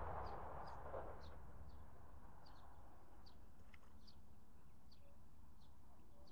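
A small bird calling with short, high chirps, about two a second. A rustling noise fades out in the first second.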